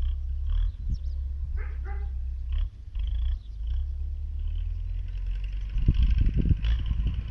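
Distant MTZ tractor's diesel engine pulling a deep-ploughing plough, a steady low drone, with wind rumbling on the microphone toward the end. A few short animal calls sound over it, one clearer about two seconds in.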